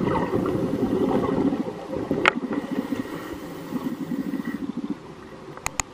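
Scuba diver's exhaled bubbles rumbling and gurgling underwater in two long exhalations, with a sharp click about two seconds in and two more near the end.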